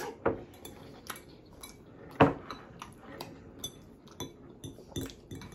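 Metal fork scraping and clinking against a small glass bowl while the last of the noodles are scooped up: a string of irregular clinks, the two sharpest about a quarter-second in and just after two seconds.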